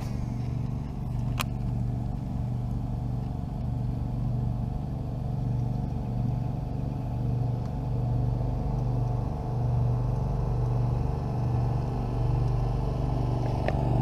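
A motor running steadily, a low hum holding one pitch with a slight pulsing, with a single sharp click about a second and a half in.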